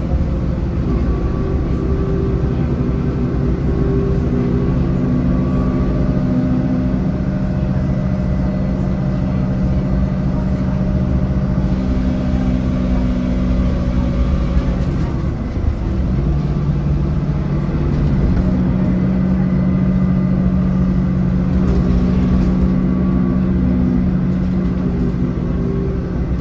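Diesel city bus engine and road noise heard from inside the passenger cabin while underway, a steady drone. A little past halfway the engine note drops lower for about two seconds, then climbs back up as the bus pulls again.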